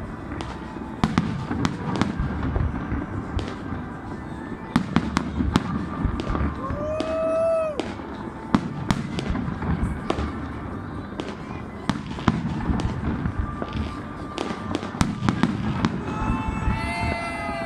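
New Year fireworks exploding in quick succession: many sharp bangs and crackles over a constant low rumble. A pitched whistle-like tone rises and falls about seven seconds in, and another falls near the end.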